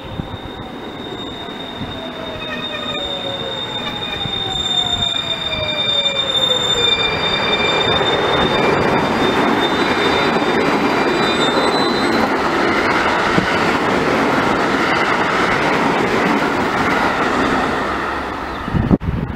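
JR West electric multiple-unit train passing through a station at speed. A steady high-pitched ring and a few tones sliding down in pitch are heard as it approaches. Then the rushing rumble of the train passing builds to a loud, sustained roar that cuts off abruptly near the end.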